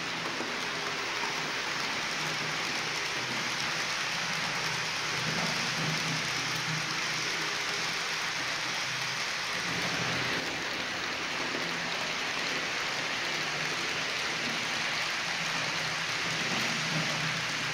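H0-scale model freight train of VTG tank wagons rolling past on the layout track: a steady noise of small metal wheels running on the rails, with a low hum underneath.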